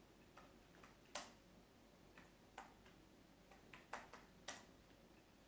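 Irregular, soft clicks of laptop keys being pressed, about eight of them spread over five seconds, against near-silent room tone.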